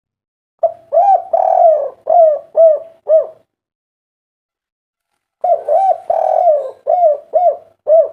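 Spotted dove cooing: two phrases of several rising-and-falling coo notes each, the first phrase starting about half a second in, a pause of about two seconds, then a second phrase near the end.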